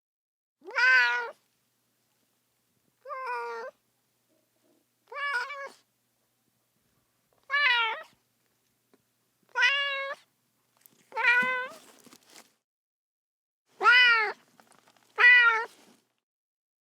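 Domestic cat meowing: eight separate meows, each under a second long, rising and then falling in pitch, with silent gaps between them.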